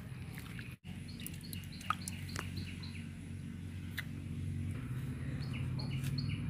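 A bird calling with short, falling chirps repeated about twice a second, growing stronger near the end, over a steady low hum.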